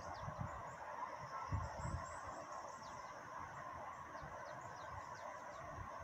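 Wind gusting on the microphone a few times in the first two seconds, over a steady faint city hum, with many short, high bird chirps throughout.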